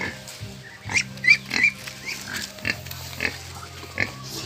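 Short, sharp farm-animal calls, about eight of them at irregular intervals, over a steady low hum.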